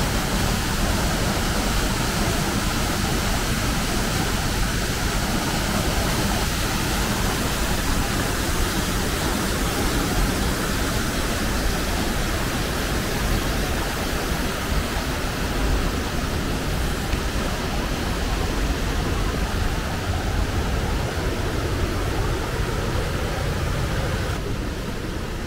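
Mountain stream cascading over boulders: a steady, loud rush of white water. About a second before the end the hiss turns duller.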